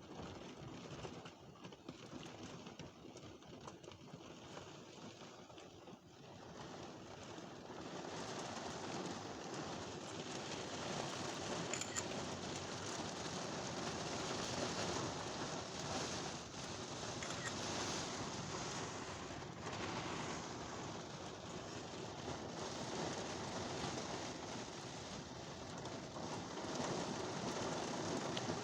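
Thunderstorm rain falling, a steady hiss that grows heavier about seven seconds in.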